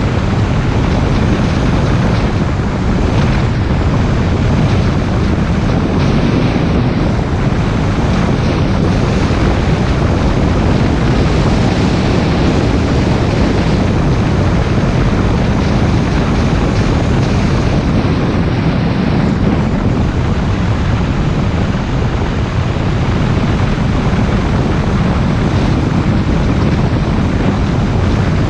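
Car driving, heard as a steady, heavy rush of wind noise on the microphone mixed with tyre and road noise, strongest in the low end and with no clear engine note.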